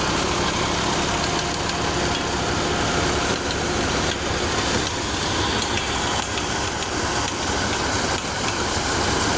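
Massey Ferguson 135 tractor engine running steadily while it drives a small thresher threshing pearl millet, the engine's steady drone mixed with the thresher's constant mechanical rush.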